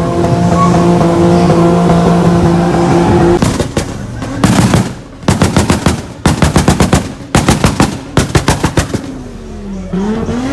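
Car engine held at high revs against a two-step launch limiter: a steady note for about three seconds, then about six bursts of rapid bangs from the exhaust as the limiter cuts in. Near the end the revs fall away and rise again.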